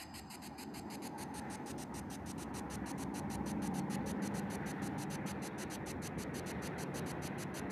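Spirit box sweeping through radio stations: a steady hiss of static chopped into about eight even pulses a second.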